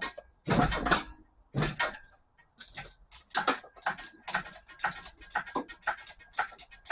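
A rapid, uneven series of short knocks and scrapes, with a few louder ones in the first two seconds, then about three a second.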